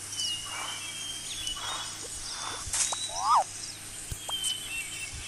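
Nature ambience with bird whistles and chirps. About two-thirds of the way in comes a short animal call that sweeps up and down, the loudest sound, part of a pattern that repeats about every three seconds like a looped sound-effect track.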